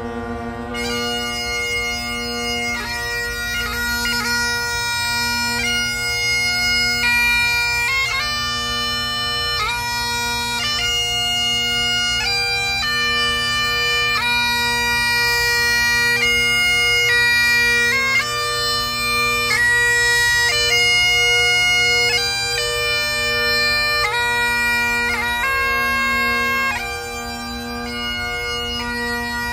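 Great Highland bagpipe playing a slow pibroch lament. The drones sound steadily, and about a second in the chanter comes in with long held notes broken by quick grace notes.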